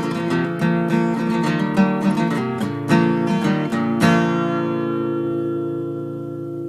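Background music: acoustic guitar playing, ending on a strummed chord about four seconds in that is left to ring and slowly fade.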